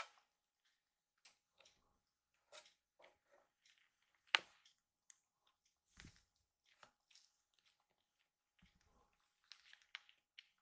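Faint, scattered taps and scuffles of kittens' paws on a wooden floor as they wrestle, with one sharper click about four seconds in and soft thumps near six and nine seconds.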